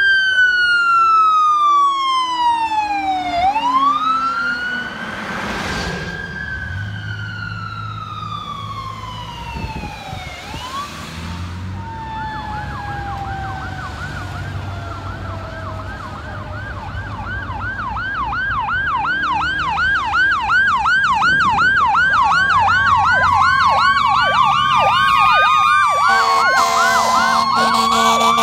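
Fire apparatus sirens on an emergency response: a siren in a slow wail, falling and rising twice, then a fast yelp of about three cycles a second over a truck's engine. Near the end a steady horn sounds over the sirens.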